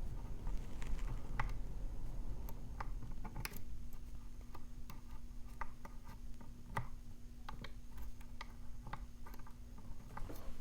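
Lock pick and tension wrench working in the keyway of a Brady Safekey padlock: small irregular metallic clicks and scratches, a few a second.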